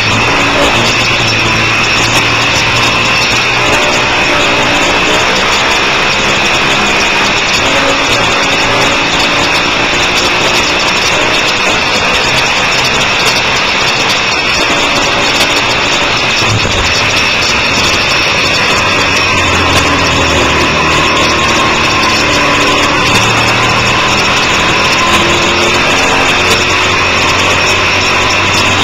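Motorcycle engine running hard, its pitch rising and falling as the revs change through gears and corners, under heavy wind rush on the onboard microphone.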